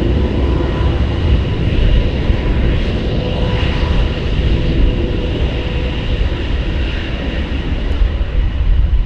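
F-35 fighter's Pratt & Whitney F135 turbofan running, a loud steady low roar with a few thin, steady whining tones held over it.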